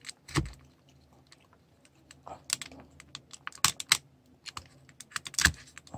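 Scattered sharp clicks and taps of a pointed tool prying at the hard plastic torso joint of an action figure, as the two halves are worked open.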